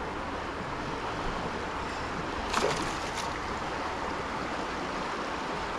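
Steady wind and water noise out on the water, with a few short clicks or knocks about two and a half to three seconds in.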